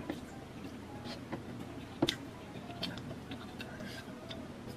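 Quiet eating sounds: scattered soft clicks and smacks from chewing and hand-picking spicy boneless chicken feet, the sharpest about two seconds in.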